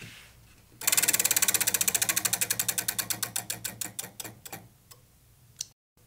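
Spinning prize wheel ticking as it turns: a fast run of clicks starts about a second in and slows steadily to a few last clicks as the wheel comes to rest.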